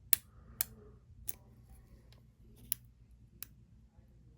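Five sharp metallic clicks, spaced unevenly, as a single-pin pick works the pins inside a Master padlock and the pins set.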